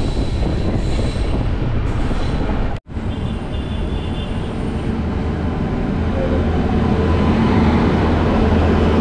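Moving passenger train: a steady rumble of wheels on rails. The sound cuts out for an instant about three seconds in, and the low rumble grows heavier in the second half.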